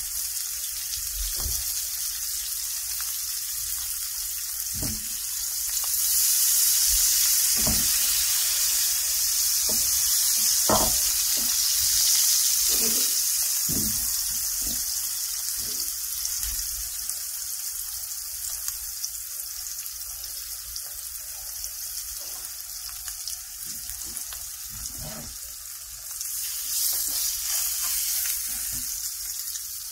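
Swai fillets frying in olive oil and butter in a skillet: a steady sizzling hiss with scattered small crackles, swelling louder for several seconds about a fifth of the way in.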